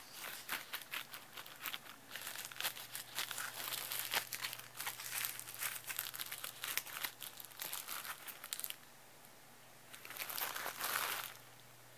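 Cellophane crinkling in quick, dense crackles for most of the first nine seconds. It stops, then comes one more short burst of crinkling near the end.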